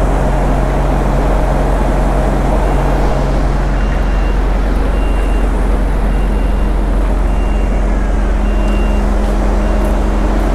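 Heavy diesel engine running steadily close by, a deep continuous drone, with a vehicle's reversing alarm beeping about once a second over it.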